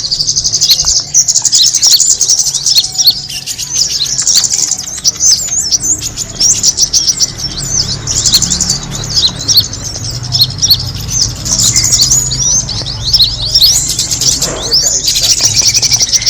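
Small songbirds chirping and twittering in rapid, high-pitched trills that run almost without a break, over a faint low hum.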